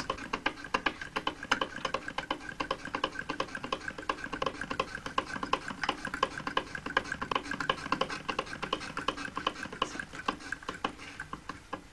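Hand-cranked Willcox & Gibbs single-thread chain-stitch sewing machine stitching through cloth: a rapid, even ticking of needle strokes.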